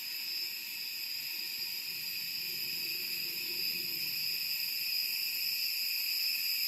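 Cicadas calling in chorus: a steady, unbroken high-pitched buzz that slowly grows louder.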